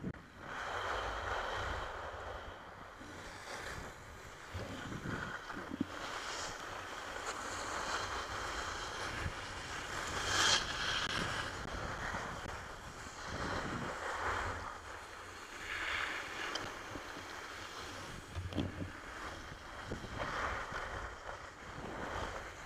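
Wind buffeting the microphone and skis scraping over groomed snow during a downhill run, the noise swelling and easing every few seconds with the turns.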